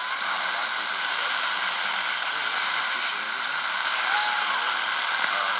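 Shortwave radio receiver tuned in the 49-metre band, giving a steady static hiss between transmissions, with a brief faint whistle about four seconds in.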